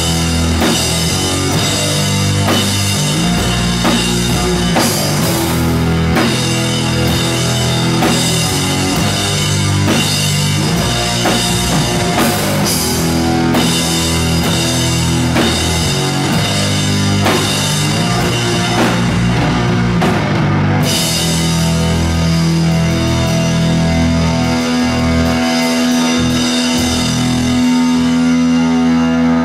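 A loud live rock band: electric guitar, bass guitar and a drum kit playing together. About two-thirds of the way through, the cymbals and dense drumming drop away and a long note is held over sparser hits.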